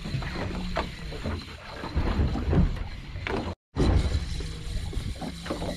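Wind rumbling on the microphone aboard a boat at sea, over a low steady hum. The sound drops out completely for a moment about three and a half seconds in, at an edit.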